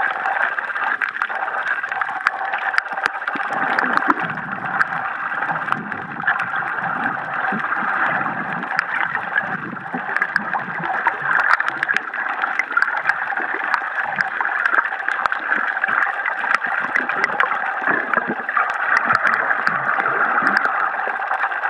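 Underwater ambience: a steady, muffled gurgling of water, with many scattered sharp clicks.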